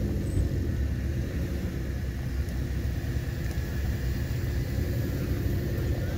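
Several Suzuki Jimny 4x4s driving slowly past in a queue, a steady low rumble of their engines.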